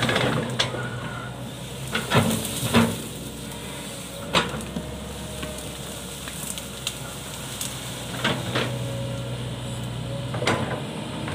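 Hitachi crawler excavator's diesel engine running steadily while it works, with a scattering of sharp cracks and knocks, the loudest about two to three seconds in.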